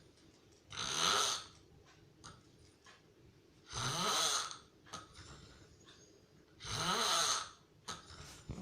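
Heavy snoring: three long snores about three seconds apart, each lasting about a second and rising in pitch as it begins.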